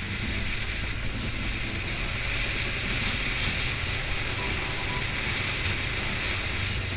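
Kawasaki Versys 650 parallel-twin running steadily while riding, mixed with steady wind and road noise on the bike-mounted camera's microphone.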